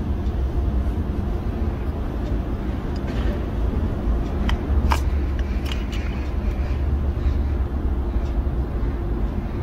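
A steady low mechanical hum, like an engine running nearby, with a few light clicks as a metal pick works the old rubber O-ring off a plastic oil-filter housing cap.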